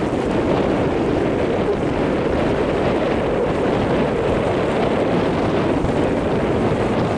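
Steady wind noise buffeting the microphone, with the wash of sea waves on the breakwater beneath it.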